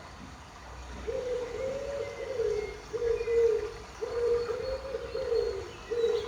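A dove cooing: a run of about four low, soft coo phrases, the first and third longer, each rising and then falling in pitch.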